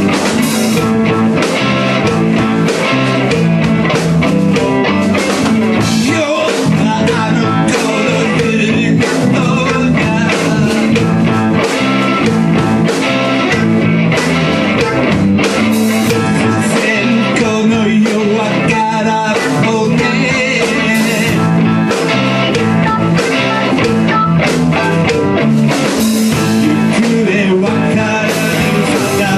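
Rock song with guitar and a singing voice.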